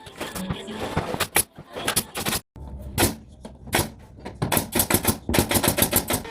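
Interior construction work: a rapid string of sharp knocks and clacks, several a second, thickest in the last two seconds, broken by a sudden cut to silence about two and a half seconds in.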